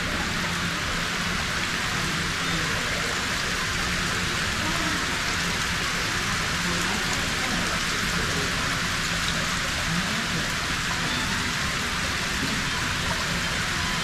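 Water wall: a thin sheet of water running down a textured stone face and splashing into a shallow stone basin, a steady, even splashing hiss.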